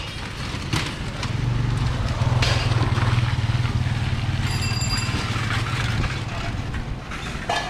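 Street traffic ambience: a motorcycle passes with its engine running, the low hum swelling to its loudest in the middle and fading after about six seconds. A short high-pitched ring sounds about four and a half seconds in, with scattered clicks and rattles from passing cycle rickshaws.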